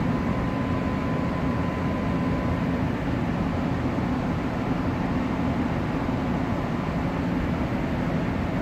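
Lincoln Impinger 1450-series oven's hot-air blower motor and fan running steadily: an even rush of air over a low hum. The motor is starting and blowing again now that its failed start capacitor has been replaced.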